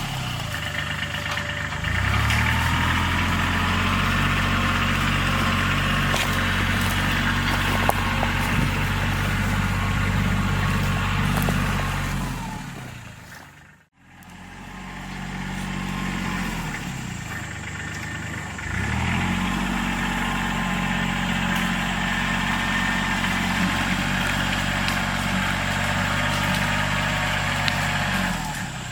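An engine of brush-clearing machinery revs up and runs steadily at high revs, then drops back and fades out about halfway through; after the fade it revs up again, holds, and drops back to idle near the end.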